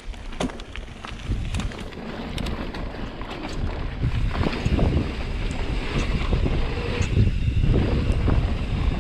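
Wind rushing over the microphone on a mountain bike descent, growing louder over the first few seconds as speed builds, with scattered clicks and rattles from the bike on the trail.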